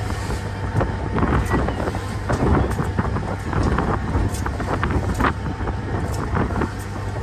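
Wind buffeting the microphone on the open deck of a passenger ferry underway, over the steady low rumble of its engines, with scattered short knocks.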